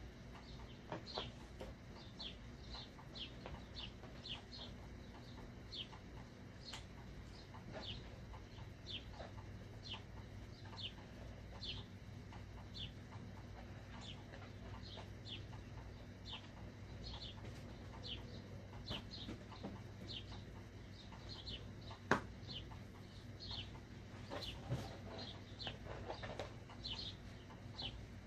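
A small bird chirping over and over, short high chirps that slide downward, a little more than once a second. A single sharp click about three-quarters of the way through.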